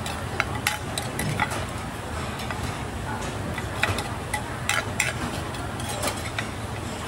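Metal serving spoon scraping and knocking against the inside of a clay mortar as papaya salad is scooped out, a string of irregular sharp clicks over steady background noise.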